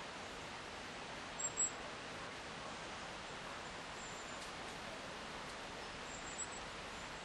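Steady, even rushing of a river flowing through oak woodland, with a couple of short, high bird chirps about a second and a half in and fainter ones later.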